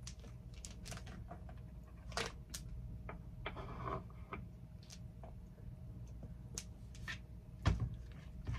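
Scattered light clicks and taps of a plastic squeeze bottle being handled and set on the table, with a short rustle about three and a half seconds in and two low thumps near the end, over a steady low hum.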